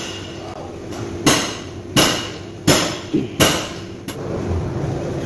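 About six sharp metallic clinks, each ringing briefly: steel parts knocking together as the timing-chain tensioner and its bolt are fitted to the engine.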